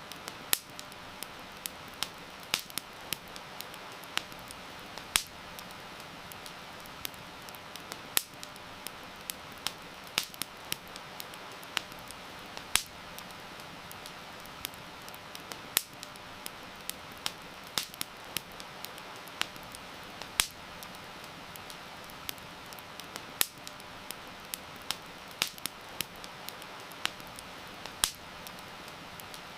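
Campfire crackling, with sharp irregular pops several times a second over a steady hiss of heavy rain.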